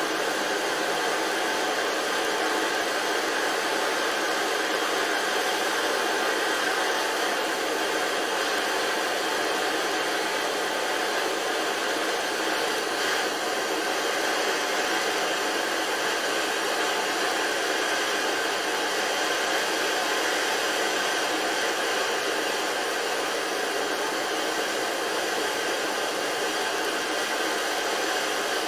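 Two gas torches, one on a yellow MAPP-gas cylinder, burning with a steady, unbroken hiss as their flames heat a steel plane blade for hardening.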